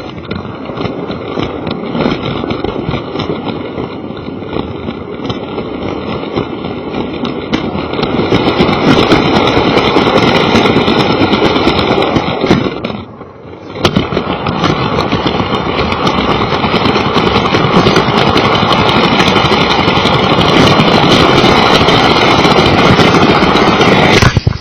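Lego toy train's small electric motor and wheels running along plastic track, close up from a camera riding on the train. The sound dips briefly about halfway through, then runs on steadily.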